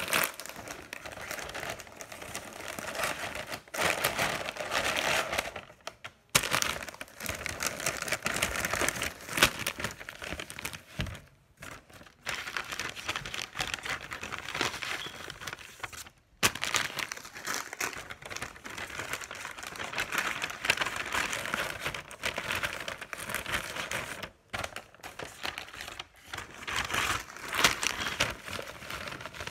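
Plastic Doritos chip bag crinkling and crumpling as it is handled, with a few brief pauses.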